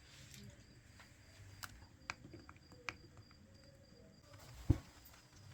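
Faint clicks and light taps of small tools and phone parts being handled during a smartphone repair, with one louder, low bump near the end.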